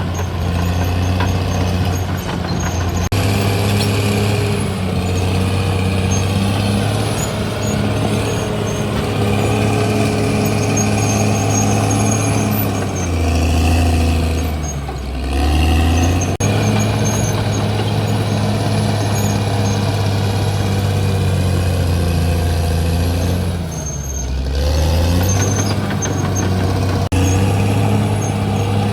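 Caterpillar D6R XL bulldozer's diesel engine running steadily at high revs. Its pitch drops briefly twice, about halfway through and again near the end, and each time climbs back.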